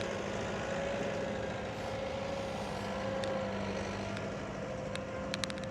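Ford 7610 tractor's four-cylinder diesel engine running steadily while pulling a three-furrow plough, with a whine that wavers slightly in pitch.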